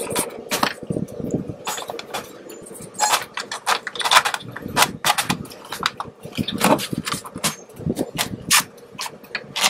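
Plastic digital wall clock case and front frame being handled and fitted together, then turned over on a workbench: a run of irregular clicks and knocks of hard plastic.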